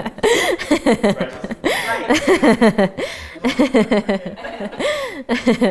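People laughing and chuckling, mixed with lively, hard-to-make-out talk.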